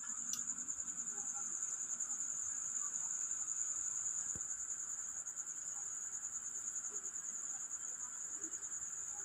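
Night insects trilling steadily: a continuous high-pitched, finely pulsing trill with a lower, softer chorus beneath it.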